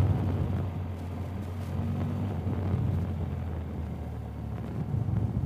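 BMW R 1250 GS Adventure's boxer-twin engine running at low revs as the bike rolls slowly, getting a little quieter about a second in, with light wind noise on the helmet microphone.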